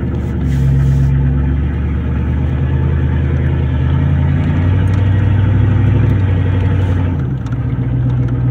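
Chevy 454 (7.4-litre big-block V8) gas engine driving a 1994 Chevy 2500 pickup, heard from inside the cab. It is loud because the exhaust pipe is cut off ahead of the catalytic converter. The engine note drops lower partway through, then comes back up near the end.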